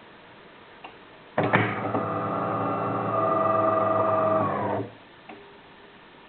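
DeLonghi Magnifica ESAM 4200 automatic coffee machine running its motor or pump for about three and a half seconds, a loud steady buzz that shifts in tone partway through, then stops abruptly. A light click comes just before it starts and another just after it stops.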